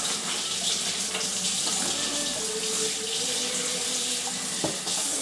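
Kitchen tap running steadily into the sink while hands are washed under it. A short sharp click near the end.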